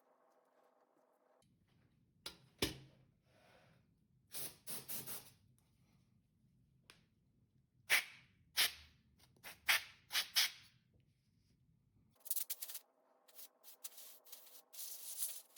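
Short rubbing and scraping strokes from hands working on the laptop's parts. They come one at a time with pauses, then in a quick dense run near the end.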